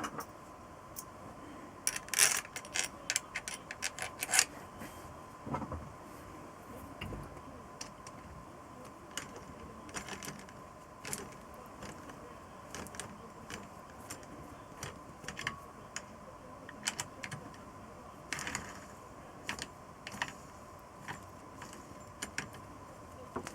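Metal tools and small parts clinking and tapping during hand assembly work on a motorcycle engine. The clicks are scattered, with a quick run of clinks about two to four seconds in and another brief cluster later, over a faint steady high hum.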